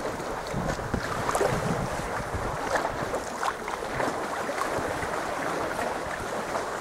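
Water splashing and lapping around a sea kayak under way, with many small irregular spatters from the paddle and wind on the microphone.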